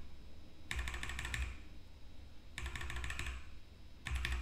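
Computer keyboard keys tapped in quick runs: three bursts of rapid clicking about two seconds apart, as keys are pressed to skip through a video.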